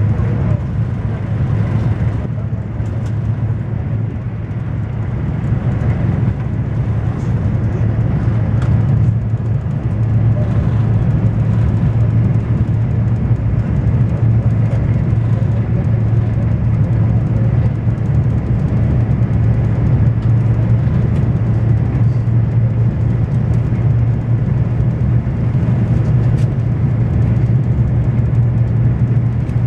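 Steady cabin noise inside a Renfe AVE high-speed train running at about 260 km/h: a constant deep hum under an even rushing sound.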